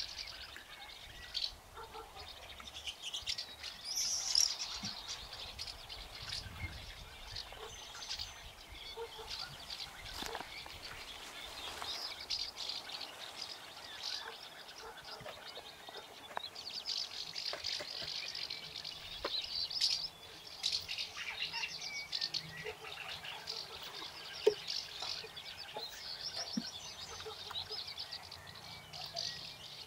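Garden birds chirping and singing on and off, with a few faint knocks and clicks from plastic bottles being handled.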